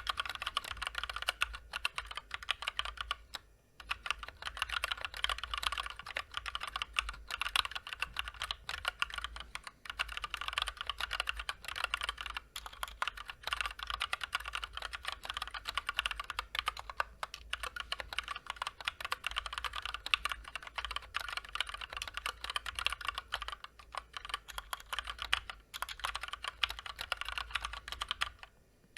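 Continuous typing on a Drop Ctrl High Profile mechanical keyboard with stock, unlubed linear Gateron Clear switches and double-shot PBT keycaps: a fast, steady run of key clacks with a few brief pauses.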